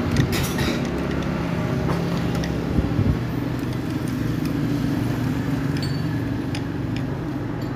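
A steady low engine hum runs throughout, with a few light metal clicks and knocks as a camshaft and its bearing are worked out of a motorcycle cylinder head.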